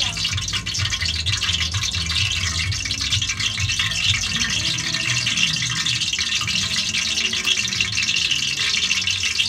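Oil heating in a wok on the stove burner: a steady hiss full of fine crackling, with a low hum underneath, as the pan comes up to frying temperature.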